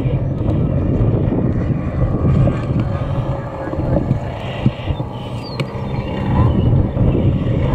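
Brand-new engine of a 50% scale radio-control Cub droning in flight overhead, mixed with heavy wind buffeting on the microphone that rises and falls in gusts.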